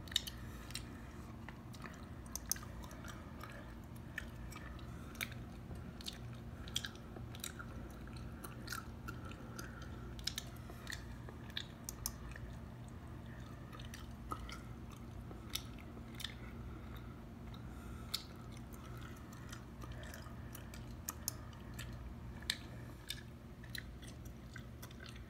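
Chewing gum close to the microphone: wet, sticky clicks and smacks at irregular intervals, over a steady low hum.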